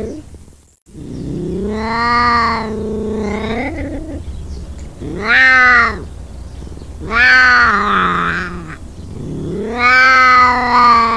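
Ocelot giving four long, meow-like yowls in turn, each rising and then falling in pitch.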